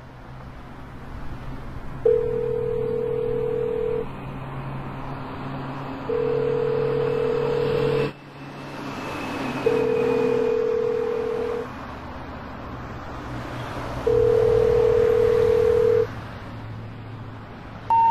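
Telephone ringback tone heard down the line: a steady tone sounds four times, about two seconds each with roughly two-second gaps, over a low hum. Right at the end the rising three-note intercept signal starts, the signal that the dialed number cannot be reached as dialed.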